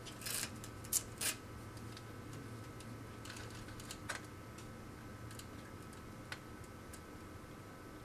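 Light plastic clicks and ticks of data cables being pressed into a patch panel's clip-in form-up guide, three sharper clicks in the first second and a half, then fainter ones every second or so.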